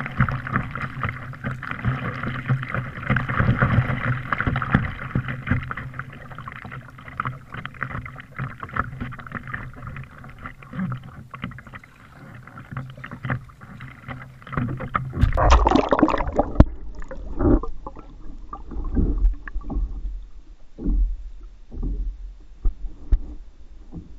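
Water lapping and rushing against a kayak's bow, heard through a camera mounted on the bow. About fifteen seconds in, the camera goes underwater: the sound turns dull and muffled, with irregular low thuds and gurgles.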